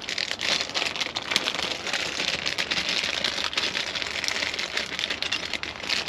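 Small plastic parts bag being handled and opened, crinkling in a dense run of crackles.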